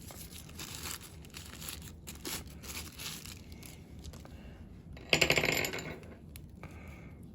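Small packaging rustling and crinkling as a micro USB cable is taken out of its box, with soft clicks and a louder brief rustle about five seconds in.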